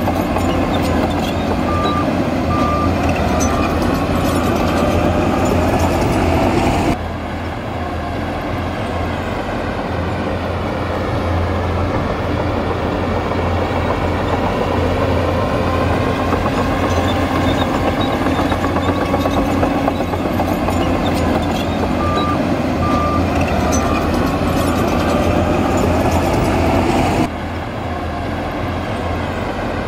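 Heavy diesel earthmoving machinery running under load, its engine pitch slowly rising and falling. A reversing alarm sounds three short beeps about 2 seconds in and three more about 22 seconds in.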